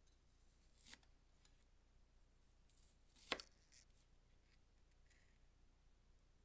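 Kitchen knife cutting through a halved onion and knocking on a plastic cutting board: two cuts, a soft one about a second in and a sharp, louder knock a little past three seconds, with faint ticks after.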